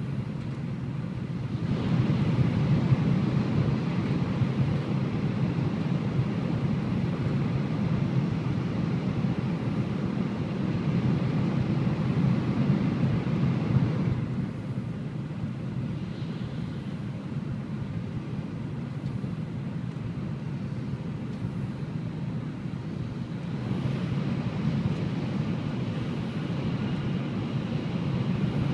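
Shinkansen bullet train heard from inside the passenger cabin, running at about 200 km/h through a tunnel: a steady deep rushing rumble. It swells about two seconds in, eases a little around the middle and rises again near the end.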